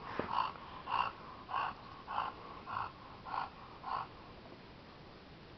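A dog barking in a fast, even series of short barks during rough play, about seven of them less than a second apart, stopping about four seconds in.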